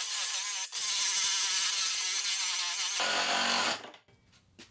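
Cheap cordless angle grinder with a thick grinding disc grinding a flat steel bar: a loud steady whine of the motor and disc against the metal, with a brief break just under a second in. Near the end the whine stops abruptly and the grinder goes quiet.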